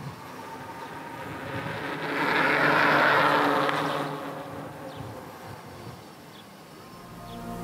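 Electric fat bike passing close by: a buzzing hum from its fat tyres and wheel hub motor, swelling to a peak about three seconds in, then fading as it rides away.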